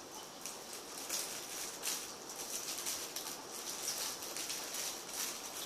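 Plastic snack packaging rustled and crinkled in the hands, in quick irregular crackles.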